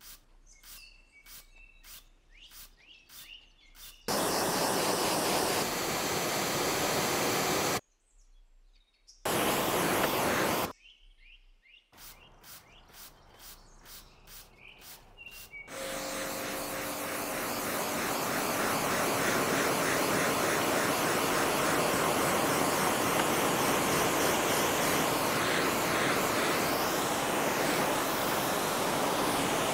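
Hand trigger spray bottle squirting in quick repeated strokes, about two or three a second, with birds chirping faintly. This is broken twice by short stretches of loud hissing water spray. From about halfway through, a pressure-washer jet hisses steadily as it rinses the car.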